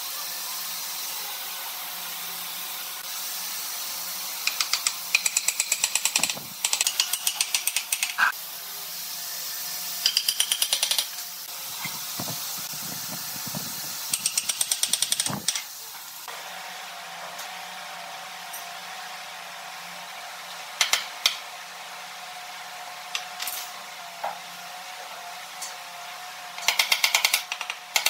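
Cordless impact driver hammering in five short bursts of rapid clatter, each one to two seconds long, driving screws into the wooden base. A few single wooden knocks from a mallet fall between the bursts.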